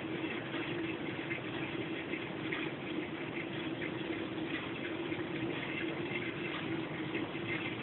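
Aquarium filter running: a steady low hum under a constant fizzing, bubbling water noise.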